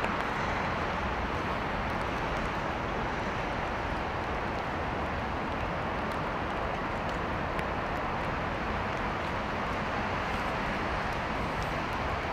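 Steady rain falling on wet stone paving and wooden decking: a continuous even hiss, with a low city traffic rumble beneath.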